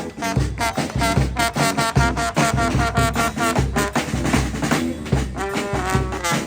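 Brass band playing: several brass horns sounding a tune together over a steady drum beat, with a strong low bass pulse.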